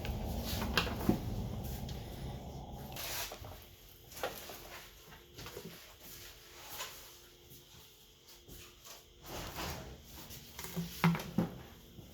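Scattered light clicks and taps of small tools and phone parts being handled during a smartphone disassembly, with a low rumble in the first couple of seconds.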